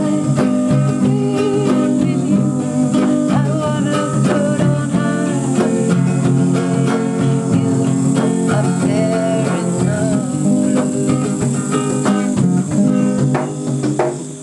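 Acoustic guitar strummed and picked steadily, with a woman's singing voice at times over it. The playing falls away right at the end.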